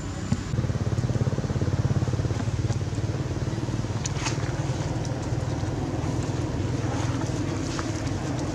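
A motor engine running steadily, getting louder about half a second in.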